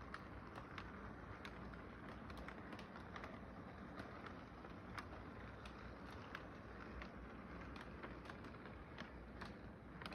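Toy train cars rolling along sectional track: a steady low running hum with irregular, sharp light clicks as the wheels pass over the rail joints.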